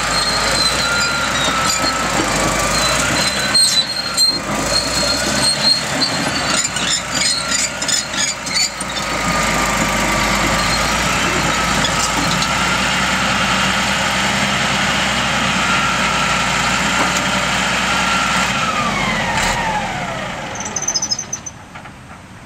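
Caterpillar D6R crawler dozer's diesel running as it tracks and turns on gravel, with a wavering whine over the engine. Clanking and rattling come and go in the first several seconds, and near the end a falling whine sounds as the noise dies down.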